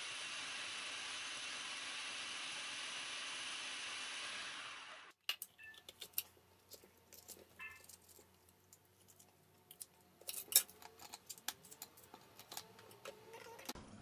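Electric food processor running steadily while its pusher presses chopped peppers down, cutting off abruptly about five seconds in. Then a kitchen knife cuts bell peppers on a cutting board, with scattered light clicks and crunches.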